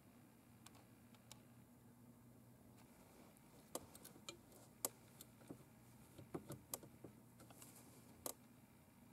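Irregular light, sharp clicks starting a few seconds in and running to near the end: a new EL84 power tube's glass base and nine pins clicking against its socket as it is rocked gradually into place.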